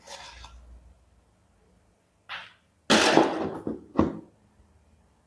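Handling noise: a faint rustle at first, a louder rustle about three seconds in, then a single sharp tap about a second later.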